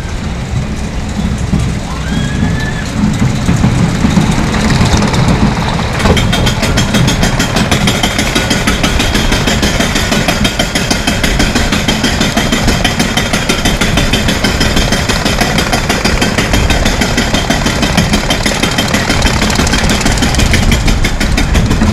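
Pinfari ZL42 roller coaster train rumbling along its steel track. About six seconds in it switches to a steady, rapid, even clicking clatter as the chain lift hauls it up the lift hill.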